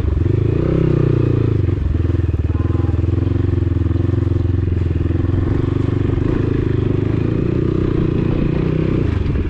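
Dirt bike engine running at low speed through mud, rising briefly in pitch as the throttle opens about half a second in, then dropping back to a steady low running for the rest.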